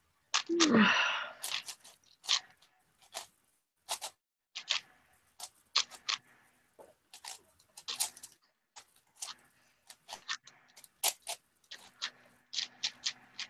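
Clicks and clacks of a large multi-layer speed cube being turned by hand, single turns at irregular spacing with pauses between. About half a second in there is a louder breathy sound with a falling pitch, lasting about a second.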